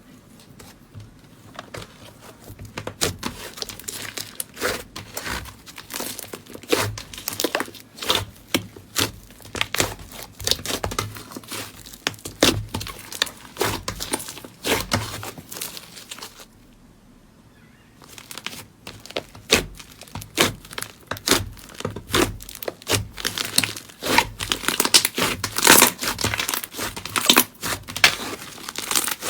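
Slime being squeezed and pressed by hand, giving a dense, irregular run of crinkly, crackling pops. There is a pause of about a second and a half a little past halfway, and the crackles grow louder near the end.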